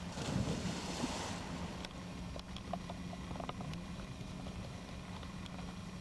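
Chesapeake Bay Retriever leaping into a pond: a big splash for about the first second and a half. After it come fainter, scattered small splashes as the dog swims out.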